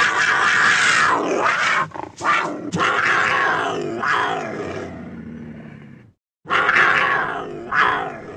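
Cheetah growling and snarling: one long, harsh snarl in several surges that fades over about six seconds, then, after a short break, two shorter snarls.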